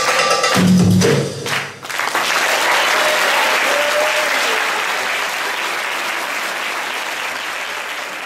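Belly dance music ends with a few sharp final hits just under two seconds in, then an audience applauds steadily, slowly fading away.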